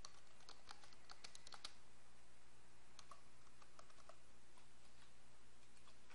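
Faint typing on a computer keyboard in two short runs of keystrokes, the second about three seconds in, then a single click near the end.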